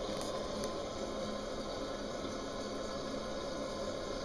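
Toilet water running steadily with an even hiss, as the toilet refills after a flush.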